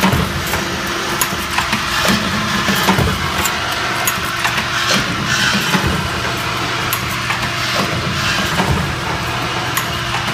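Automatic bucket-handle making machine running, forming iron wire: a steady motor hum under many irregular metallic clicks and knocks from its feeding and forming mechanism.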